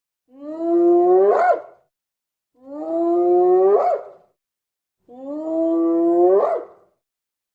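An animal call repeated three times, identical each time: a loud pitched cry about a second and a half long that holds steady and then rises sharply at the end.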